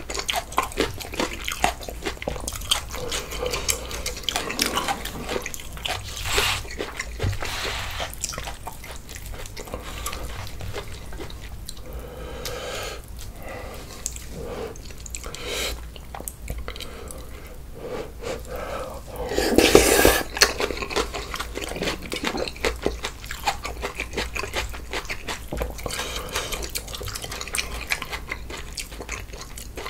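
Close-up wet eating sounds of bulgogi hot pot with glass noodles: chewing and slurping of noodles and broth, with many small wet clicks and one louder, longer stretch about twenty seconds in.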